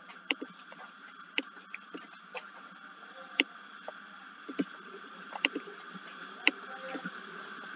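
Computer mouse clicking a dozen or so times at irregular intervals, about one click a second, over a steady background hum.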